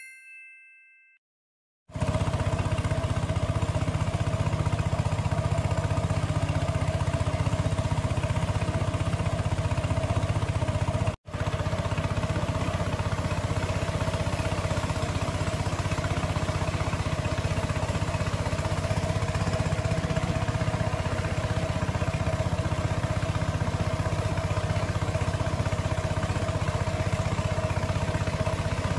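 Small boat's engine running steadily at an even speed, with a momentary break about eleven seconds in. A short chime fades out just before the engine starts.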